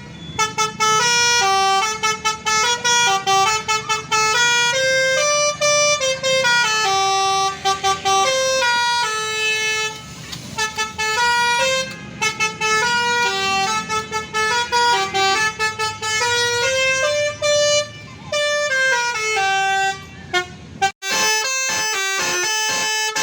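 Bus telolet horn, a multi-tone musical air horn, playing a fast melody of stepped notes that rise and fall in phrases, breaking into short choppy toots near the end.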